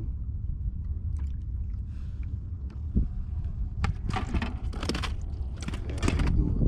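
Steady low rumble of wind on the microphone and water against a small fishing boat. From about three seconds in comes a run of short, sharp noises as a fish is reeled in on a rod.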